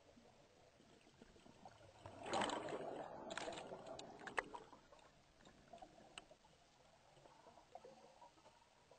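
A scuba diver exhaling through the regulator underwater, releasing a rush of bubbles that starts about two seconds in and dies away over the next two seconds, with a few sharp clicks.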